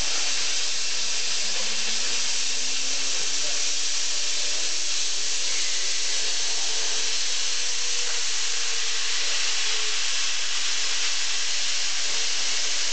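CNC pantograph's cutting torch running with a loud, steady hiss, while the machine's drive motors whine faintly underneath, gliding up and down in pitch as the gantry moves.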